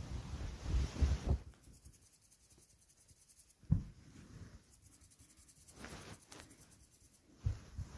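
Scratchy rubbing and rustling close to the microphone, loudest near the start, with a sharp knock about four seconds in and more rustling and soft thuds later on. The sound is that of a ginger kitten shifting about on a shaggy rug; no meowing.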